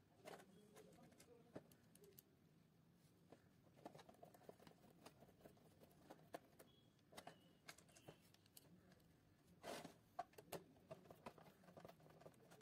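Faint clicks and scrapes of a screwdriver turning small screws into the plastic back panel of a coin bank, with a louder knock of handling a little under ten seconds in.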